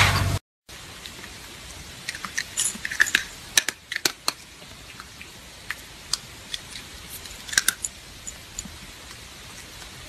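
Scattered small sharp clicks and crackles of dry cat kibble over a faint hiss, bunched in a couple of clusters. A louder steady sound cuts off abruptly in the first half second.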